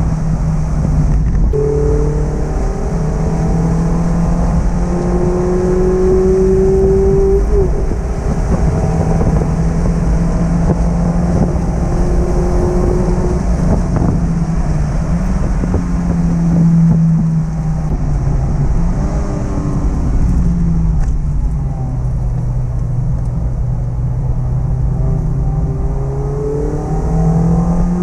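Mazda MX-5 ND's 1.5-litre four-cylinder engine through its stock exhaust, under way on the road, its revs rising and falling with the driving and dropping lower for a few seconds in the last third, over steady road rumble.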